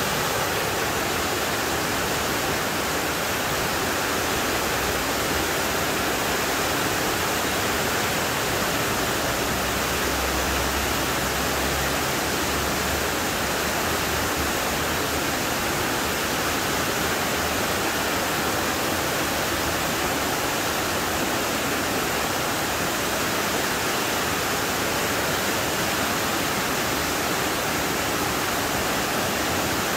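Tall waterfall pouring down a rock face partly sheathed in ice: a steady, unbroken rush of falling water.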